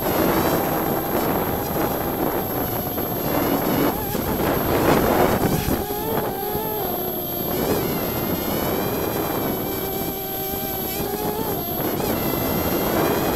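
Hubsan X4 quadcopter's motors and propellers whining close to the microphone, their pitch wavering up and down as the throttle changes, over a rushing noise.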